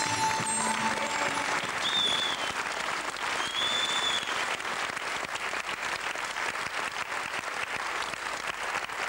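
Audience applauding, as a held final note of the live band dies away in the first second or so. Two short high whistles ring out over the clapping, about two and four seconds in.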